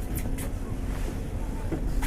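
Steady low hum of a boat's motor running, with wind on the microphone and a few light clicks.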